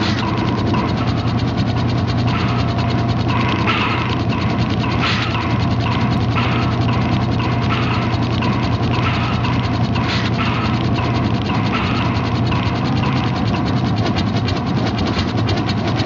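Machine gears turning, clicking rapidly and without a break over a steady low machine hum.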